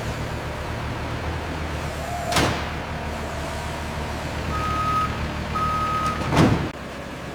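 Steady low hum of factory machinery, with two short whooshes, the second the loudest, and two long electronic beeps at one pitch between them. The hum drops away near the end.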